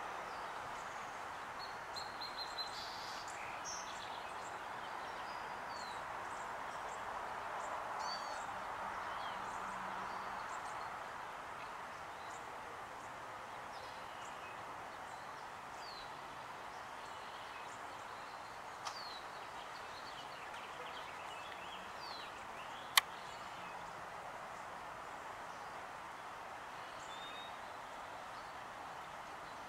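Outdoor ambience of small birds chirping here and there over a steady background hiss, with one sharp click late on.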